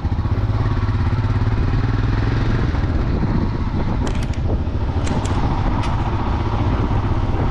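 Motorcycle engine running steadily under way, a dense low rumble with an even fine pulsing.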